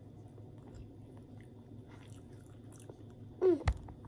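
Quiet chewing and small mouth clicks of people eating pizza and fries. Near the end comes a short high voice sound, then a sharp knock.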